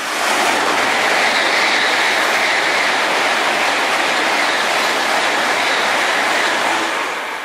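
N700-series Shinkansen bullet train passing at high speed: a loud, steady noise of wheels on rail and air that comes up suddenly at the start, holds, and fades away near the end.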